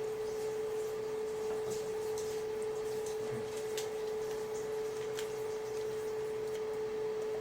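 A steady humming tone with scattered faint crackles of a pan of tomato pasta sauce cooking on the stove.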